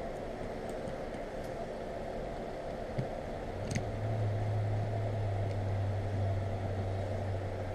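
Steady mechanical hum in the room, with a metallic click as a screwdriver is set on a steel hose clamp about halfway through, followed by a low steady drone that starts at that point and runs on.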